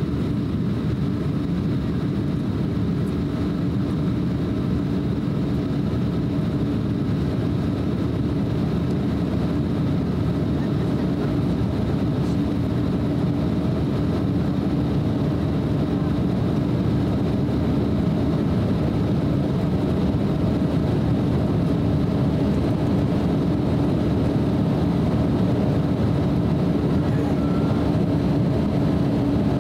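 Steady cabin noise inside an Embraer E190 airliner in flight: the even drone of its twin GE CF34-10E turbofan engines and the rush of air over the fuselage, with a low steady hum running under it.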